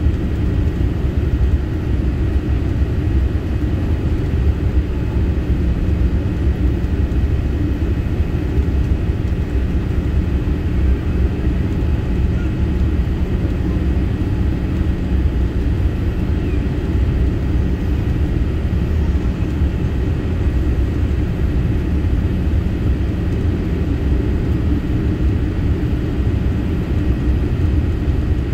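Steady low rumble inside the cabin of a Boeing 787-8 Dreamliner on final approach, heard from a window seat beside the wing: engine and airflow noise with a faint steady hum and no sudden changes.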